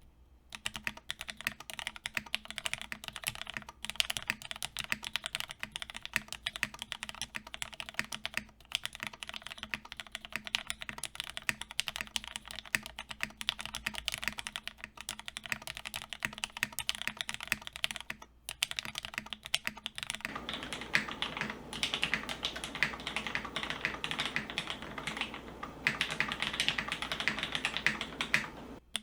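Continuous fast typing on a plateless-mounted mechanical keyboard in an aluminum case, with lubed Cherry MX Black Hyperglide linear switches and filmed housings: a dense run of keystroke clacks with a few brief pauses. Past the two-thirds mark the typing gets louder and fuller in the low end.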